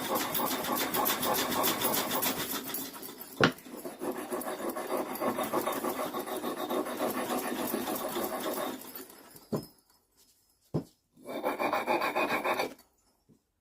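Brisk back-and-forth hand scrubbing of a steel tack hammer head with an abrasive to clean off old crud, with one sharp knock about three and a half seconds in. The scrubbing stops about nine seconds in, followed by a couple of clicks and a last short bout of scrubbing near the end.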